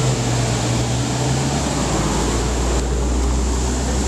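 Audi RS6's twin-turbo V10 running at low revs as the car pulls away at low speed; its low hum drops to a deeper note a little under two seconds in.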